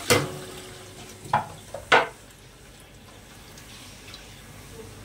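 Stainless steel utensils clattering at a kitchen sink as the running tap is shut off: a clank with a short metallic ring at the start, then two more knocks about a second and two seconds in, the last the loudest.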